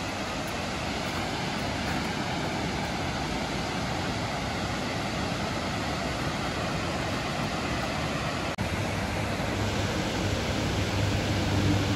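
Steady rush of water pouring over a low river dam, an even noise with no breaks. After a brief dropout about eight and a half seconds in, it carries on with a deeper rumble underneath.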